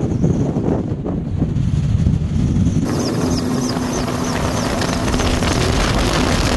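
Firefighting helicopter carrying a water bucket: a low rotor rumble mixed with wind on the microphone, then, after a sudden cut about three seconds in, the louder, hissier steady noise of the helicopter heard from on board, with a steady hum.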